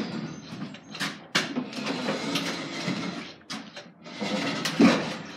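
Hand pallet truck being yanked back and forth, its forks stuck under a loaded pallet: rattling metal with sharp clanks and knocks, the loudest near the end.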